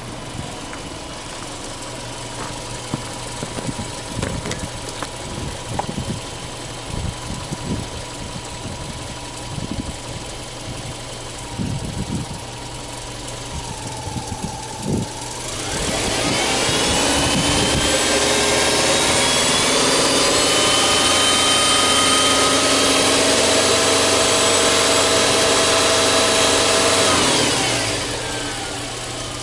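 Subaru Legacy Touring Wagon 2.0R's EJ20 flat-four boxer engine idling, then revved up about halfway through. The revs are held steady for around ten seconds and drop back to idle near the end.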